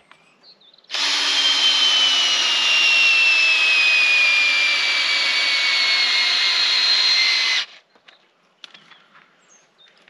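Cordless drill running under load into a wooden stump for about seven seconds, its whine falling slowly in pitch, then stopping abruptly.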